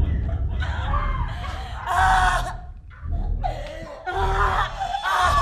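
A woman laughing wildly without words, in several broken, breathy bursts with wavering pitch, over a low steady rumble.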